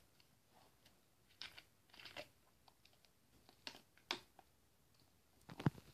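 A few faint, scattered clicks and crackles of handling noise, the loudest near the end.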